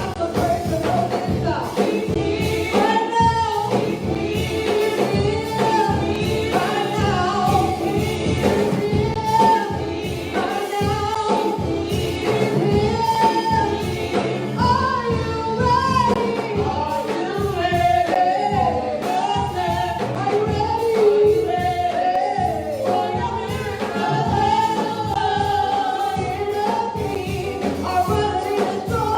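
Gospel music with singing over a steady beat, as sung in a church worship service.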